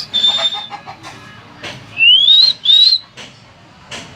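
Pet hill myna whistling: a short held high whistle at the start, then two loud rising whistles about two seconds in, with a few short clicks between.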